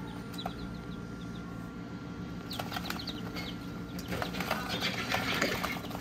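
Young parrot beak Aseel chicks peeping a few times over a steady low hum, then about two and a half seconds in a spell of rustling and scrabbling, loudest near the end.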